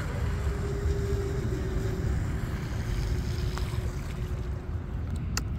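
Twin electric motors of an RC speedboat running at a steady whine that sags slightly in pitch and fades out after about three and a half seconds, over a heavy low rumble of wind on the microphone.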